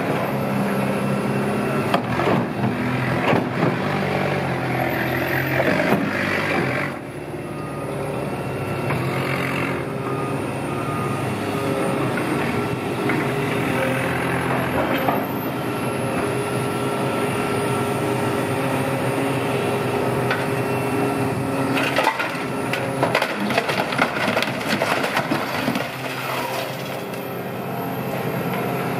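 A heavy machine's diesel engine runs steadily while the body of a 2008 Scania OmniLink city bus is crushed and torn apart for scrap. Clusters of cracking and crunching come in the first few seconds and again late on.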